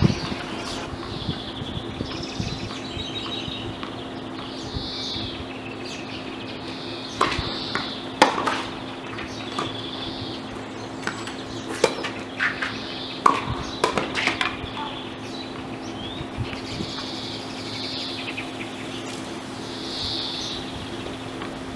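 Tennis ball struck by rackets and bouncing on a hard court, a quick run of sharp hits in the middle as a rally is played. Birds chirp over and over in the background, over a steady low hum.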